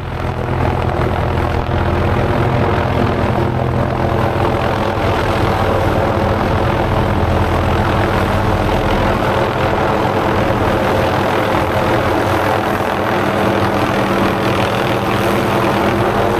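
MD 500D helicopter flying, a loud, steady rotor and turbine drone that comes in at the start and holds level.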